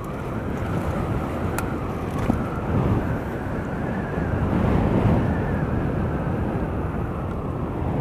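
Wind buffeting the microphone of a rider on an electric bike at speed: a steady rush that grows somewhat louder around the middle.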